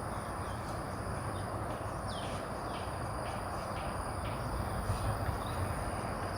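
Outdoor ambience: a steady high-pitched insect drone with a string of short, falling bird chirps, over an even low background noise.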